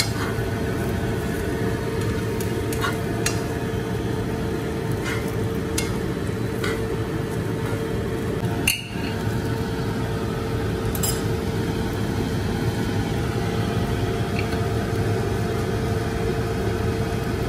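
A metal spoon and chopsticks stirring and tossing dry shredded fish floss in a nonstick frying pan, with scattered light clicks of the utensils against the pan over a steady droning hum.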